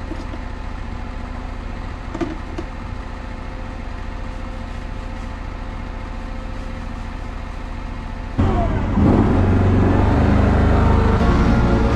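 John Deere F911 commercial mower's engine running steadily at idle. About eight seconds in it gets suddenly louder and stays up.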